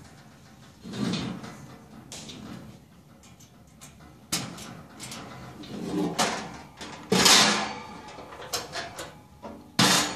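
Metal lid of a portable propane grill being swung open and shut on its hinges, a series of clanks and rattles; the loudest and longest clatter comes about seven seconds in.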